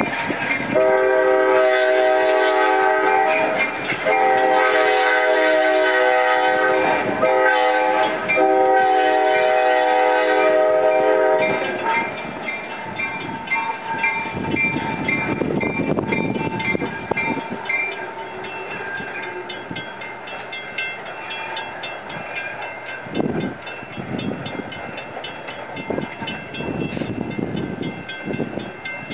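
EMD F7 diesel locomotive's air horn sounding the grade-crossing signal: two long blasts, a short one and a final long one. The train then rolls past with a steady rumble and wheel clicks, while a crossing bell rings on.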